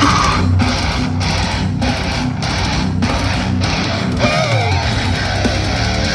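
Death metal band playing, with heavily distorted electric guitars and drums. For the first few seconds the riff is chopped by short breaks about every half second, then a sliding high note cuts through about four seconds in.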